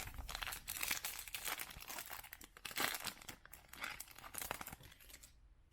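Foil trading-card pack wrapper being torn open and crinkled, a dense crackling that runs for about five seconds and then stops.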